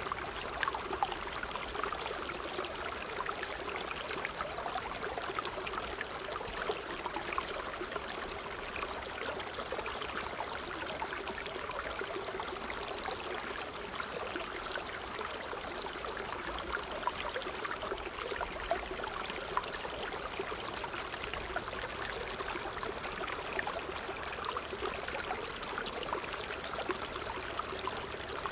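A small creek cascading over rocks, its water splashing steadily and evenly.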